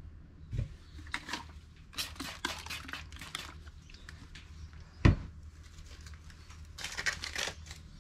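Off-screen rustling and crinkling handling sounds in short clusters, with a dull thump about half a second in and a louder one about five seconds in.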